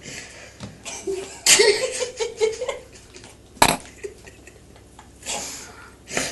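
A person laughing in breathy giggles, with a short voiced laugh about a second and a half in. A single sharp knock about three and a half seconds in, as a kitten jumps and paws at paper on a wall.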